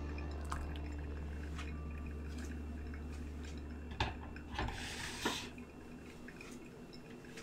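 Hot water poured in a thin stream from a gooseneck kettle onto coffee grounds in a pour-over filter, dripping through. A sharp knock comes about four seconds in, followed by a brief clatter. A steady low hum stops at about the same time.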